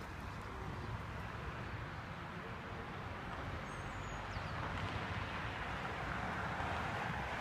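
Steady outdoor background noise, a low rumble with a hiss that grows slightly louder over the last few seconds.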